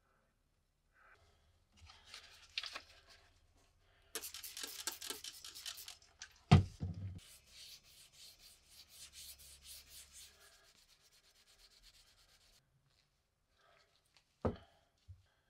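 Yellow abrasive pad rubbed quickly back and forth along the steel spike of a WW2 British No. 4 spike bayonet, in dense repeated strokes. There is a sharp knock about six and a half seconds in, and a shorter knock near the end.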